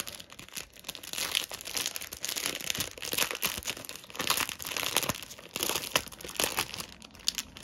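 Small plastic packets of diamond-painting drills being handled, crinkling irregularly throughout.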